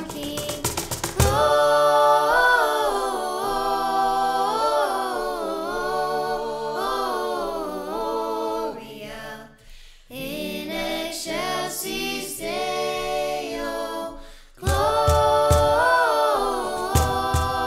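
Several voices singing a cappella in harmony, holding notes with vibrato. Sharp percussive beats come with the singing in the first second and again near the end, and the singing dips briefly twice near the middle.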